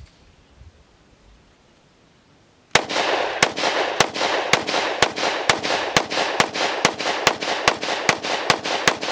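Glock 29 10mm compact pistol fired rapidly, about three to four shots a second, starting nearly three seconds in, each shot followed by a short echo. The string runs without a stoppage, showing the sleeved 15-round Glock 20 magazine feeding reliably.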